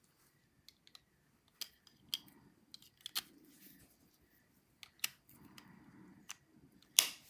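Light, scattered clicks and taps of small objects being handled, with a faint rustle, and one louder sharp snap near the end.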